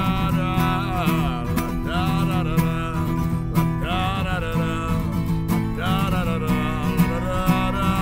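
Acoustic guitar strummed in a steady rhythm under a man's wordless 'la da da' vocal melody.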